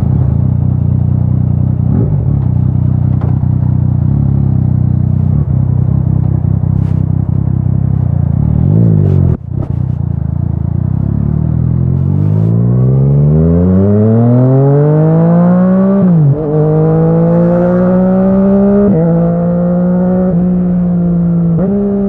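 Yamaha MT-09's inline-three engine through an Akrapovic exhaust, running steadily at low revs at first, then accelerating through the gears: the pitch climbs and drops back at each of about three upshifts in the second half.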